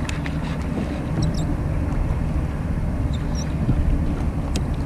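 Steady low rumble of wind on the microphone mixed with water sounds around a fishing kayak, with one faint click near the end.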